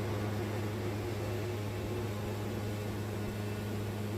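Wood-Mizer band sawmill running, a steady low drone.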